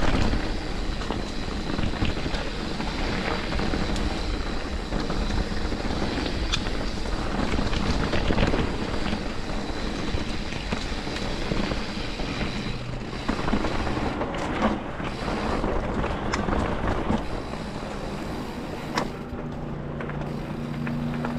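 Wind rushing over the microphone and a mountain bike's tyres rolling over a dirt trail, with short rattles and clicks from the bike over bumps. The noise eases a little in the last few seconds.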